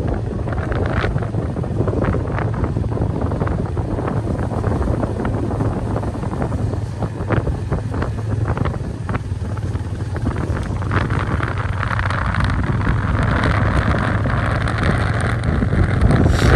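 Motorcycle riding along at steady speed: wind buffeting the microphone over the low, continuous rumble of the engine, with a few light knocks. The wind hiss grows stronger in the last few seconds.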